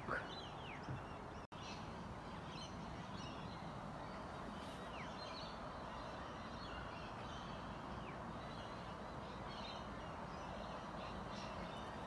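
Scattered faint bird chirps and short downward-sweeping calls over steady background noise, with a momentary break in the sound about one and a half seconds in.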